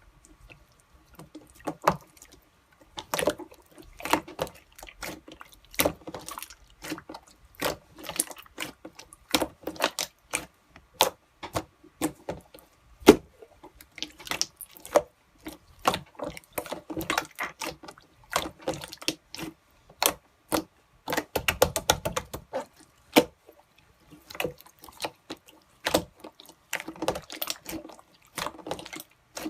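Gold pearl slime being squished and worked, giving irregular wet pops and clicks as air pockets burst, with a quick run of crackling pops a little past the middle.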